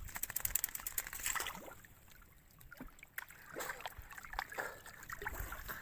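Water splashing and sloshing as a person wades chest-deep and grabs at fish in a netted fish trap, in short irregular splashes, busiest in the first second and a half, quieter in the middle, picking up again toward the end.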